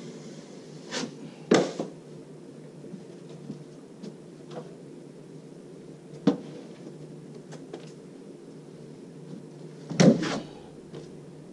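Steel drywall trowel clacking and scraping against its hawk and the wall while joint compound is loaded and spread: a few sharp clacks, the loudest about a second and a half in and again near the end, over a steady low hum.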